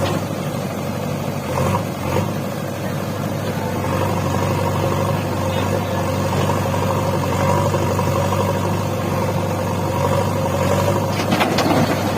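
JCB 3DX backhoe loader's diesel engine running steadily at a constant speed with an even hum.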